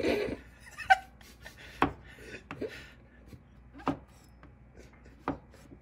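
Cleaver blade knocking on a wooden cutting board as it cuts through king oyster mushrooms: four sharp knocks, unevenly spaced one to two seconds apart.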